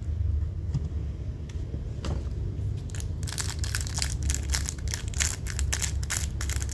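Packaging being handled, crinkling and crackling: faint at first, then a dense run of crackles from about three seconds in, over a steady low hum.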